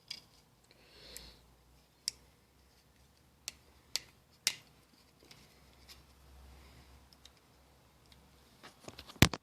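Scattered light clicks and taps of a plastic dryer knob and a cut-down brass shell casing being handled and fitted together, ending in a cluster of clicks with one sharp, louder click near the end.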